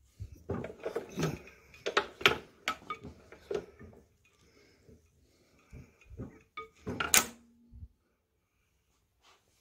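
Irregular metallic clicks and clunks from a Nelson Brothers hit-and-miss engine as its flywheel is turned over slowly by hand, the engine not running. Two runs of clatter, the loudest knock about seven seconds in.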